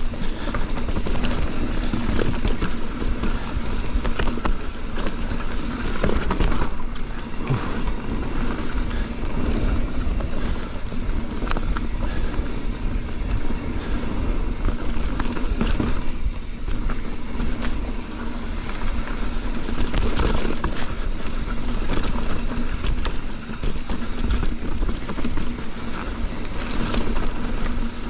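Mountain bike riding a dirt trail: steady tyre noise over dirt and rock, with scattered knocks and rattles from the bike and wind rumbling on the microphone.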